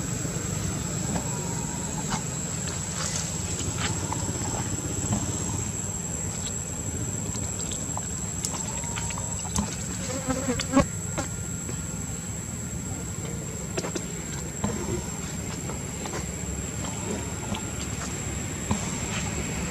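Steady high-pitched insect drone over a constant low rumble, with scattered short clicks and snaps, the loudest cluster about ten to eleven seconds in.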